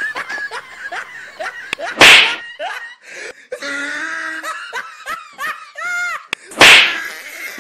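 Laughing in short, high, sliding bursts, cut twice by a loud, sharp smack: once about two seconds in and again near the end.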